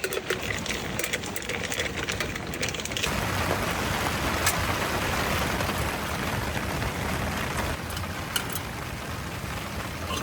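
Heavy rain falling on a tent: scattered sharp drop ticks, then a denser, even hiss of rain from about three seconds in, with a few single ticks later.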